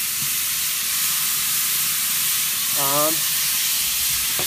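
Par-cooked broccoli dressed in garlic vinaigrette sizzling steadily on the hot grate of a Komodo Kamado charcoal grill, just dumped onto it.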